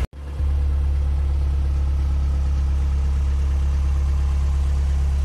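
Diesel engine of a Mercedes MB 180D van idling steadily, a low even hum heard from inside the cab.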